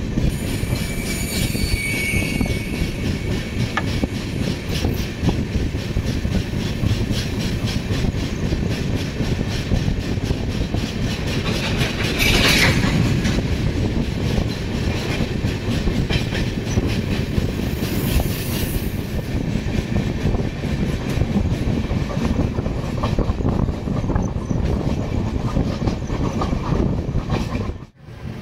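Express passenger train running at speed, heard from on board: a steady rumble with the rapid clatter of wheels over the rails, swelling louder for a moment about twelve seconds in. The sound drops out abruptly just before the end.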